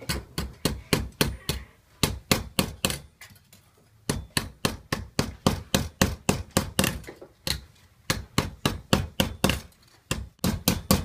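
Mallet blows on silver sheet over a steel stake, in quick runs of about four to five strikes a second with short pauses between the runs, as the edge of a silver milk-can neck is turned over a silver wire.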